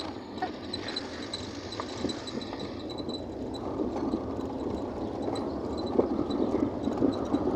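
Road and engine noise inside a car moving slowly, a steady rumble that grows a little louder, with a few light knocks late on.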